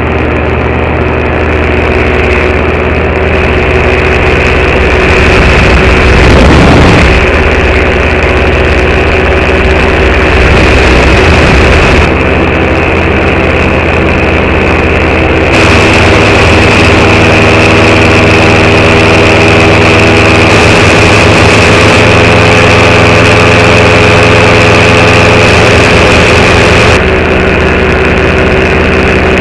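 Paramotor engine and propeller running steadily in flight, heard loud from the pilot's seat. Its pitch dips and rises briefly about six seconds in, and its tone changes abruptly a few times.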